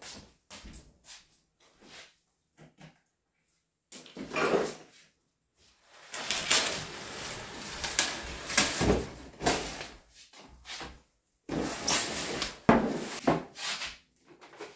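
Household things being handled and moved: footsteps, a plastic bag rustling, and a run of knocks and rubs. The loudest knock comes near the end, as a wall sign is lifted and handled.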